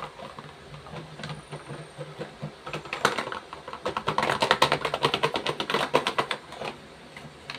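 Crinkling and rustling of a paper shopping bag and wrapped packaging being handled, with a dense run of crisp crackles for about three seconds in the middle.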